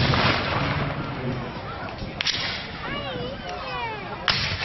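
Black-powder rifle-musket shots from a line of Civil War reenactors firing blanks: three separate shots, one at the start, a sharper one about two seconds in, and a loud one near the end, the first and last trailing off in echo.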